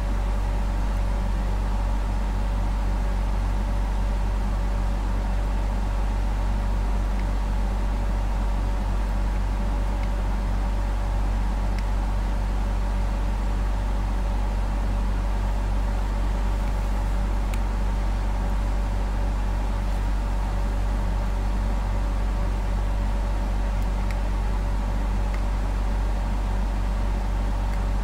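A steady low machine hum with a few faint steady tones above it, unchanging throughout.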